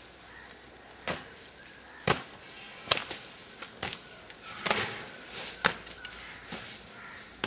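A series of sharp whacks about once a second, seven in all, fairly evenly spaced.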